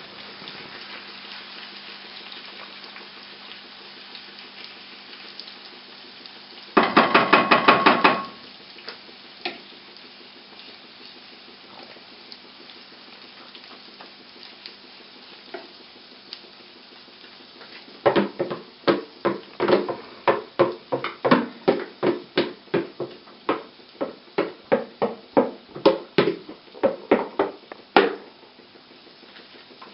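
Chicken and vegetable kuku mixture sizzling steadily in hot oil in a double-sided frying pan as a wooden spatula spreads it. About seven seconds in there is a loud rattling clatter lasting over a second, and from about eighteen seconds a long run of sharp utensil knocks, a few a second, against the pan and mixing bowl.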